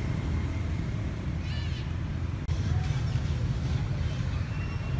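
A macaque gives a short, high squeal about one and a half seconds in, with fainter calls later, over a steady low rumble.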